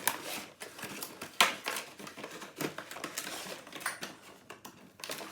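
Scattered clicks and knocks of small hard toys being handled, the loudest a sharp knock about a second and a half in.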